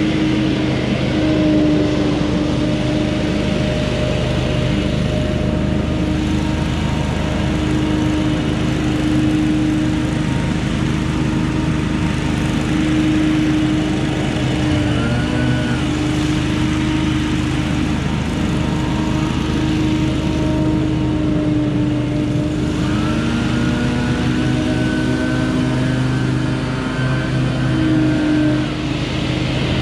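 Gas-powered leaf blower engine running steadily at high throttle, its pitch shifting briefly about halfway through and rising again a little later.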